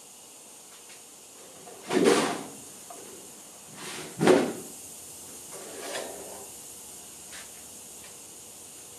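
A large thin stainless steel sheet being shifted and lifted by hand: three short swishing, rattling noises, about two, four and six seconds in, the middle one the sharpest and loudest.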